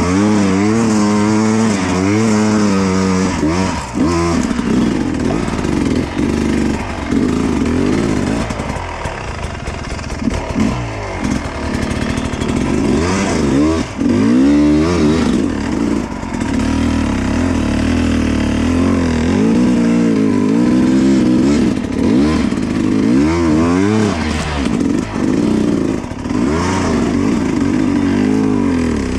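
Dirt bike engine revving up and down over and over, each rise and fall of the throttle clearly heard, as the bike is ridden over rough off-road ground. It is heard close up from the rider's helmet and kicks in loudly right at the start.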